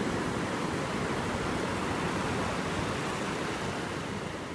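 Ocean surf washing onto a beach: a steady, even rush of breaking waves that begins to fade near the end.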